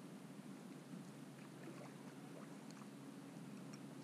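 Near silence: faint, steady lapping of water around a kayak, with a few soft ticks.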